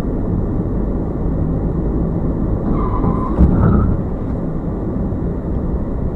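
Steady low rumble of engine and tyre noise from a car driving at road speed, heard inside the car's cabin, with a brief thump about three and a half seconds in.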